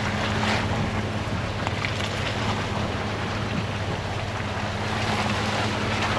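Chevy Colorado ZR2 pickup's engine running at a low, steady pace while crawling a muddy trail, heard from inside the cab as a constant hum, under an even hiss of tyres on the wet ground with a few faint knocks.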